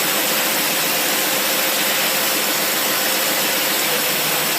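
Boat engine with a Holley 600 CFM four-barrel marine carburetor running steadily at idle.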